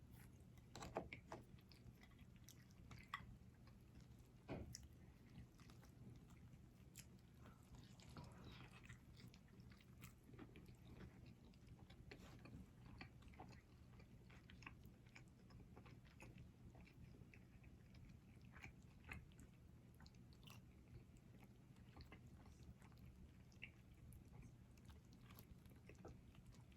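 Quiet close-miked eating of a burger and fries: soft biting and chewing with scattered small mouth clicks, a few sharper ones in the first five seconds, over a faint steady low hum.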